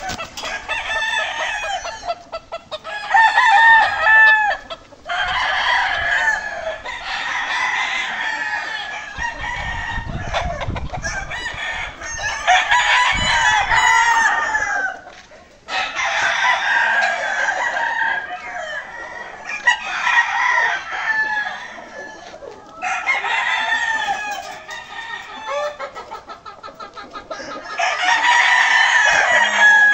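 Several gamecocks crowing over one another, one long crow following another every few seconds with only short gaps.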